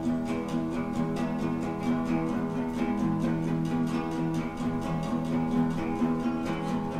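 Background music: a guitar strummed in a steady rhythm.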